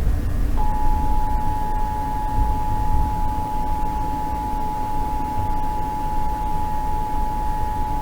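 Emergency Alert System two-tone attention signal, a steady dual tone that starts about half a second in and holds without change, over a low background hum and hiss. It is the alert tone that precedes a broadcast tornado warning.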